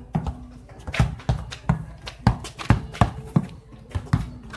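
Basketball dribbled hard on asphalt: quick, slightly uneven bounces, about two to three a second.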